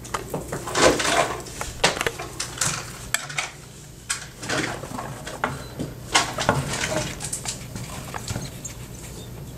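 A skinny pig (hairless guinea pig) rustling through hay and paper bedding and munching hay, in irregular crackling bursts that are loudest about a second in and again around six to seven seconds.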